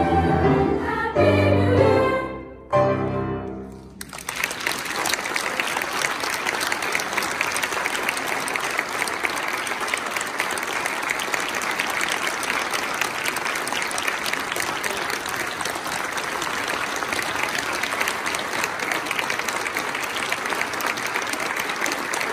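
A girls' choir with piano ends a song on a held chord, cut off about three seconds in with one short final accent. After a brief lull, the audience applauds steadily.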